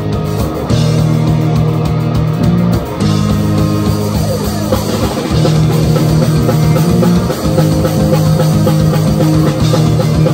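Rock band playing live with no singing: electric guitar and bass chords held and changed every second or two over a drum kit.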